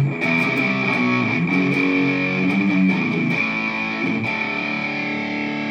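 Electric guitar played through a Zoom G5n multi-effects processor with delay and reverb switched on. Chords and notes change about once a second and ring into one another.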